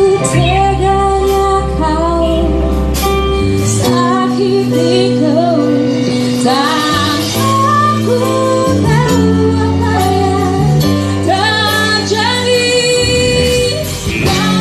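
A band playing a song, with a female voice singing a sliding melody over bass and guitar accompaniment.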